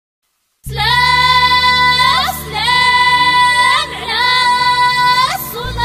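Opening of a Rif wedding song: a high melody of long held notes with short slides between them, over a steady low accompaniment. It starts about half a second in.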